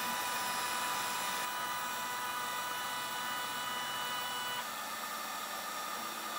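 Heat gun blowing with a steady hiss. Over it the DIY 3D printer's stepper motors whine on one steady tone while the bed travels, stopping abruptly about four and a half seconds in.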